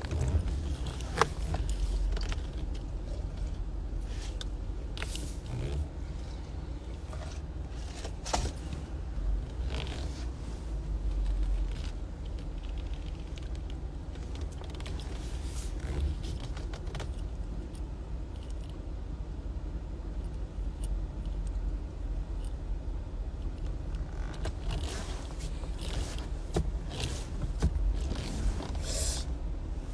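Low steady rumble of a car running, heard from inside the cabin, with scattered scrapes and clicks from things being handled.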